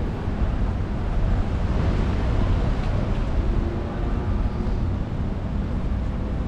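Wind rumbling on the microphone over the noise of street traffic.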